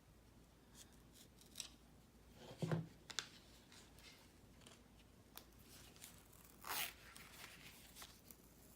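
Packaging being cut open with a craft knife and handled: scattered faint scrapes, rustles and clicks, with a soft knock about three seconds in and a longer rustle near seven seconds.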